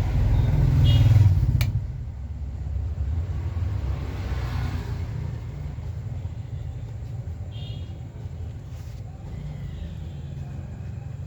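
A steady low rumble, louder in the first two seconds and then easing off, with one sharp click about a second and a half in.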